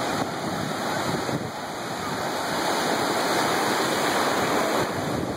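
Ocean surf breaking and washing through the shallows, a steady rush of whitewater that grows louder about a second and a half in.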